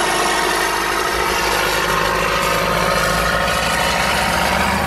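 Vehicle engines idling steadily, with a constant rough, rasping mechanical noise over them.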